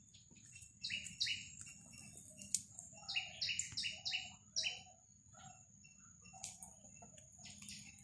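Small birds chirping in quick runs of short repeated notes, about a second in and again between three and five seconds in, over a steady high, thin tone.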